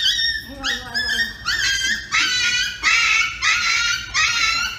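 Small dog yelping and crying in a rapid run of short, high-pitched cries, each rising in pitch at its start, while it is held down by the head and collar.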